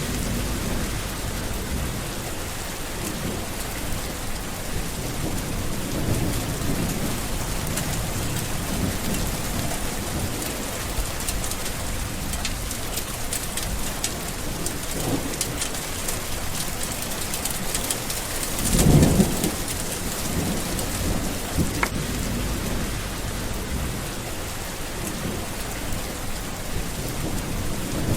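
Steady heavy rain falling, with low rolls of thunder coming and going; the loudest rumble comes about two-thirds of the way through.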